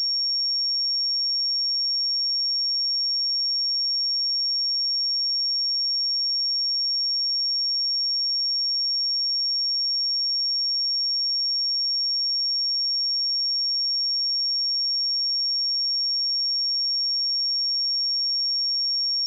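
A pure 5531 Hz sine-wave test tone, a single high-pitched steady whistle held at constant level.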